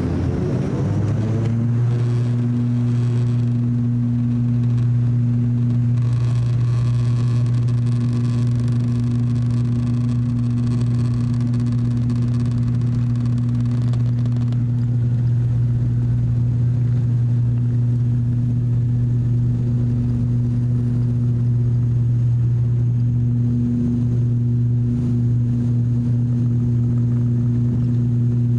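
Cabin sound of an ATR 42-600 turboprop taking off: its Pratt & Whitney PW127 engines and six-blade propellers spool up to takeoff power, the propeller drone rising in pitch over the first two seconds. It then holds a loud, steady hum through the takeoff roll and climb. A rushing noise over the hum stops about halfway through.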